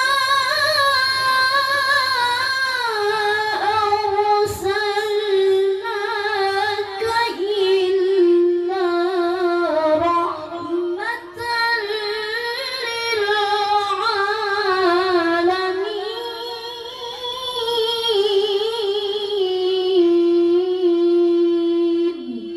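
A child qari reciting the Quran in a high voice, in the melodic tilawah style: long drawn-out notes with wavering ornaments, the phrase ending on a long held note.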